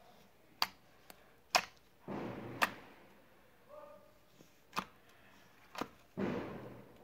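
Slime being squeezed and poked by hand: about five sharp pops, and two longer swishes that start suddenly and fade out.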